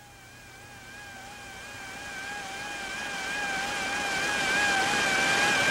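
Radio channel hiss with a steady, slightly wavering whistle tone and its overtones, growing steadily louder.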